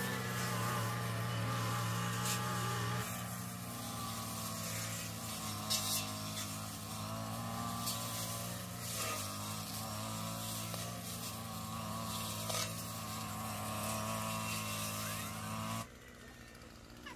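Brush cutter engine running steadily as it cuts grass, then cutting off suddenly near the end.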